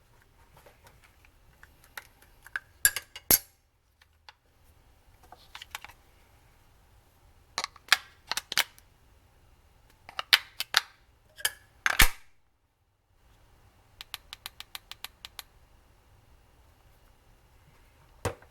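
Plastic clicks and knocks of a Vaporesso Polar vape mod being handled, with a quick run of about ten light, evenly spaced clicks near the end as its fire button is pressed rapidly to try to switch it on; the mod will not power up after a battery swap.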